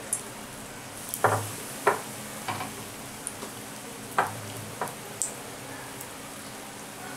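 Besan-battered jackfruit chops deep-frying in hot oil, a steady sizzle. Several sharp knocks sound through it, most of them in the first five seconds.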